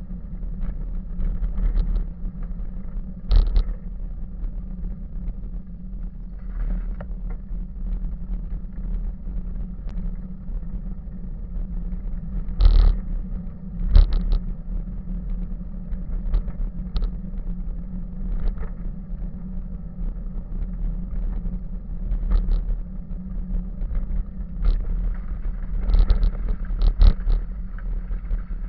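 Bicycle rolling along a gravel path, heard through a bike-mounted camera: a steady low rumble of tyres and ride noise, with sharp rattles each time the bike jolts over a bump, loudest about three seconds in, twice around thirteen to fourteen seconds, and several near the end.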